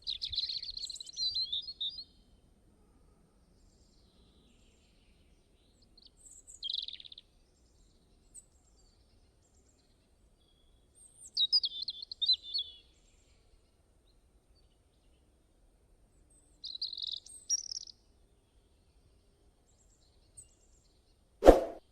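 Small birds chirping in short bursts every few seconds, with silence between, and a single sharp knock near the end.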